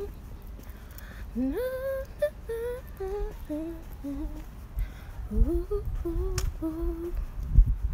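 A woman humming a tune, sliding up into and between held notes, over a low rumble on the phone's microphone that grows louder about five seconds in.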